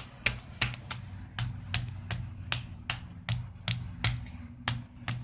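Slime being kneaded and squeezed in the hands, giving sharp clicks in a steady rhythm of about three a second.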